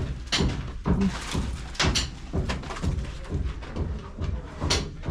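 Irregular sharp knocks and thuds, roughly one or two a second, over a low steady rumble on a building site.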